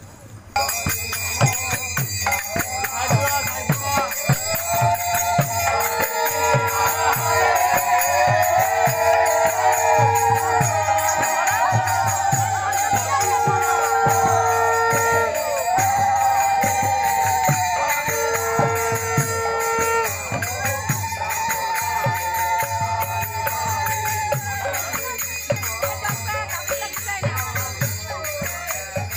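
Kirtan procession sound: hand cymbals (kartal) jingle rapidly while many women's high, wavering voices ululate over one another. Four long, steady conch-shell blasts sound through the middle of the stretch.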